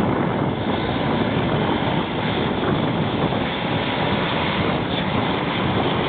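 Blizzard wind blowing steadily against the microphone as a dense, even rush of noise.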